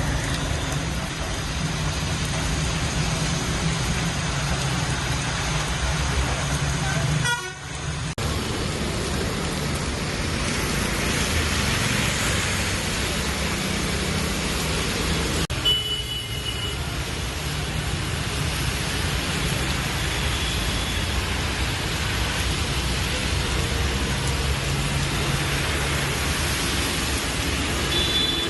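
Busy street traffic: vehicle engines and tyre noise making a steady hum, with short car-horn toots, one about sixteen seconds in and another near the end. The sound breaks off abruptly twice and picks up again.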